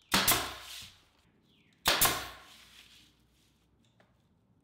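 Pneumatic nail gun firing twice, under two seconds apart, driving 1¼-inch nails through window casing into the jamb. Each shot is a sharp crack that trails off in a brief hiss.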